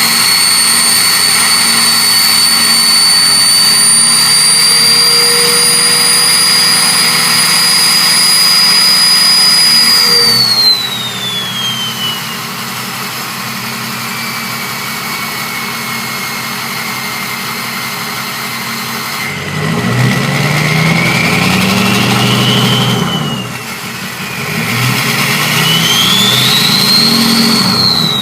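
Ford 6.0 Powerstroke V8 turbodiesel fitted with an '03 turbo, its turbo whistling loudly at raised revs for about ten seconds, then falling away in pitch as the engine drops back to idle. A little over halfway through, two short revs make the whistle rise and fall again, with the engine note climbing under it.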